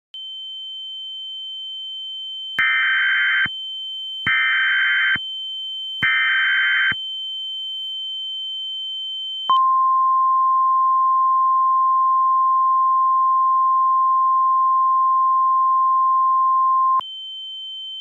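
Emergency Alert System tornado warning tones: over a steady high tone, three short bursts of screechy SAME header data about a second apart, then the NOAA Weather Radio 1050 Hz warning alarm tone held for about seven seconds, after which the steady high tone returns.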